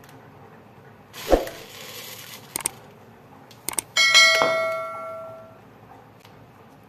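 Subscribe-button animation sound effect: a whoosh with a thump about a second in, two quick mouse clicks, then a bright bell ding about four seconds in that rings out for over a second.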